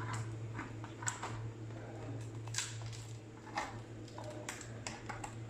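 Light clicks and scrapes of metal utensils against cookware and plates as cooked fish is lifted and set out, over a steady low hum.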